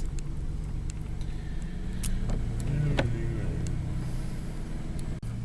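Truck engine running with a steady low hum, heard from inside the cab, with a few faint clicks and knocks about two and three seconds in.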